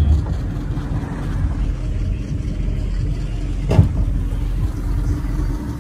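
Motorboat engine running with a steady low rumble, and a single sharp knock just before four seconds in.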